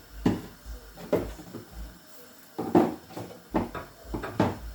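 About five separate knocks and clunks of kitchen containers being handled and set down on a counter while seasonings are added.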